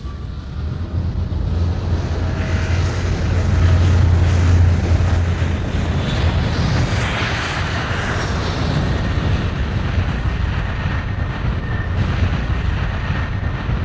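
Airplane sound effect played over a theatre sound system: a steady low engine rumble, loudest a few seconds in, with a rushing swell of jet noise about seven seconds in.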